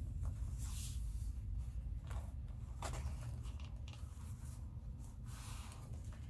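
Soft paper rustles and brushing as hands smooth and press a sheet of fibrous textured paper flat onto a journal page, a few short strokes over a steady low hum.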